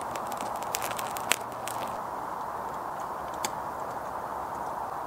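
Spruce resin burning in a tin, crackling with a quick run of sharp snaps over the first two seconds, over a steady hiss; after that only the hiss remains, with a single click.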